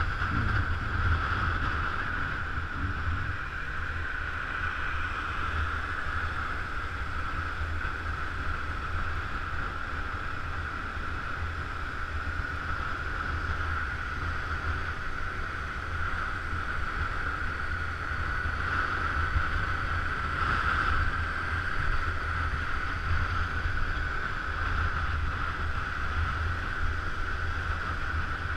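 Wind buffeting the microphone on a moving Honda scooter, a steady rumble with a constant hum from the ride over it.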